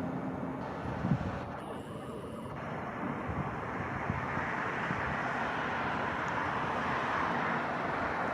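Outdoor vehicle noise: a steady rushing sound that slowly grows louder.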